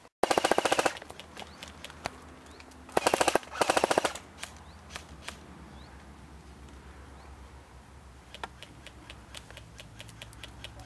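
Airsoft gun firing full-auto in short bursts, each a fast rattle of shots: one burst just after the start and two back-to-back bursts about three seconds in. Fainter scattered ticks of shots follow near the end.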